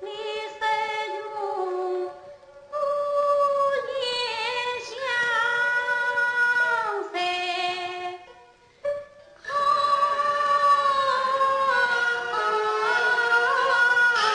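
A woman singing Yue opera: one sung line drawn out in long held notes with a wavering pitch. The line comes in phrases broken by two short pauses, about two seconds in and around eight to nine seconds in.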